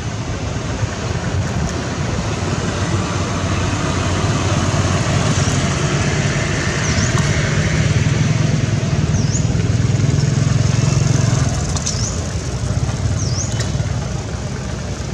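Road traffic: a motor vehicle's engine running as it passes, its low hum building about a third of the way in and easing off near the end, over a steady noisy background with a few short high chirps.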